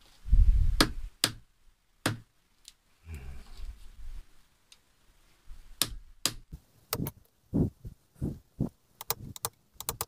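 Knocking on the metal housing of a motorcycle electric horn with a tool handle, to work a stuck part loose while taking it apart. A heavy thump at the start is followed by a few separate sharp knocks, which come quicker from about six seconds in.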